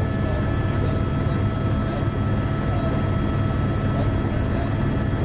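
Steady aircraft engine drone: a constant low rumble with a few unchanging whining tones above it.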